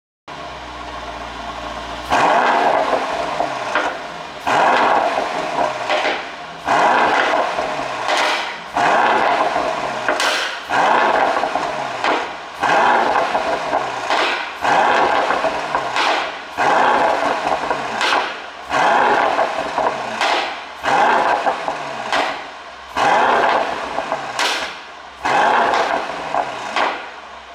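Mercedes-AMG GT63 S 4Matic+ twin-turbo V8 with a pop-and-crackle exhaust tune. It runs at idle for about two seconds, then is blipped about a dozen times, roughly every two seconds. Each blip falls back with a burst of exhaust pops and crackles.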